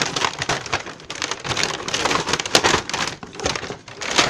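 Clear plastic toy packaging crinkling and crackling as it is handled and pulled apart, with dense irregular crackles and no pause.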